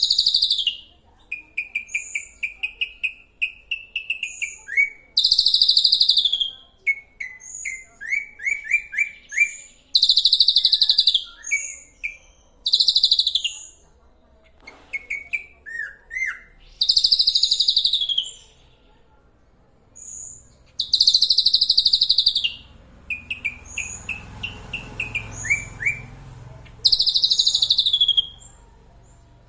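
Songbird singing: loud, harsh, falling phrases about a second long come every few seconds, with runs of quick short chirping notes between them.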